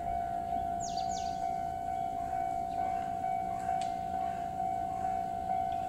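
Steady high electronic alarm tone that holds without a break, typical of a railway warning signal at a station. About a second in, two quick falling chirps, like a bird, sound over it.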